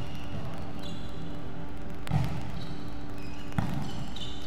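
A volleyball struck twice by players' hands, about a second and a half apart, with short sneaker squeaks on the wooden court floor in between, over a steady low hum.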